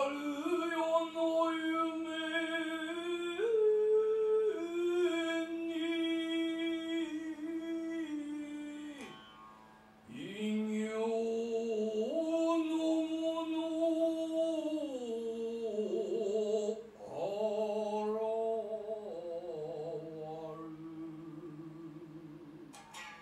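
Long, drawn-out sung notes of Japanese biwa-gatari narrative chant, held with a wavering vibrato and sliding between pitches. It comes in two long phrases, with a breath about nine seconds in.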